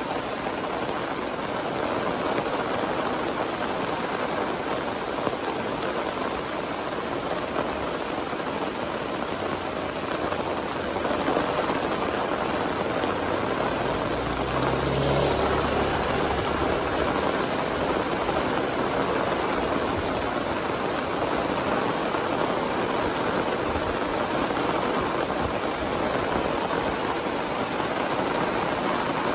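Heavy rain pouring steadily. A low rumble comes in under it around the middle for several seconds.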